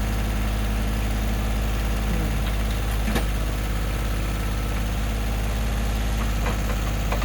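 Tractor engine idling steadily, with a few brief clicks over it, the sharpest about three seconds in.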